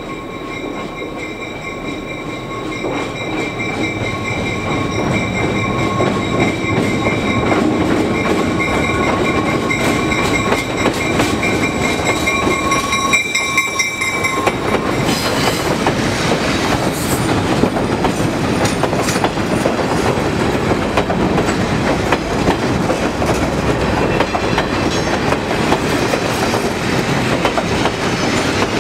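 EMD MRS-1 diesel locomotive approaching, growing louder, with a steady high-pitched whine that cuts off as it passes about halfway through. Passenger cars then roll by close up across a steel girder bridge, their wheels clicking over the rail joints.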